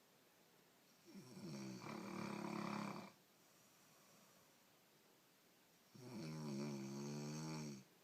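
A woman snoring: two long, pitched snores about five seconds apart, each lasting about two seconds.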